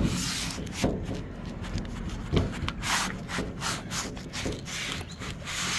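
Leather-gloved hand rubbing and pushing against a cracked windshield as the glass is worked free of its adhesive seal, with an uneven scraping and a couple of dull knocks.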